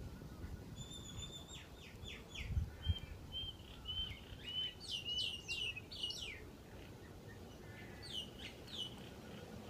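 Small birds chirping: runs of short, quick, downward-sweeping high chirps, a pause, then another short run near the end, over a low steady rumble. Two low thumps a few seconds in.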